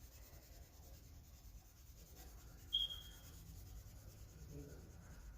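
Faint scratching and rubbing of colouring strokes on paper. A single short, high chirp-like tone comes about three seconds in.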